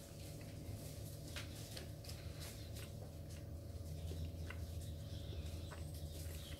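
Faint chewing and small wet mouth clicks from eating a soft Jaffa cake, a dozen or so irregular ticks, over a steady low hum.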